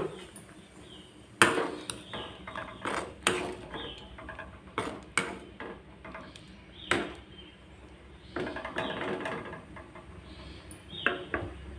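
Metal ladle stirring thick gravy with paneer cubes in a metal kadai, clinking and scraping against the pan in irregular knocks, with a longer run of scraping about eight and a half seconds in.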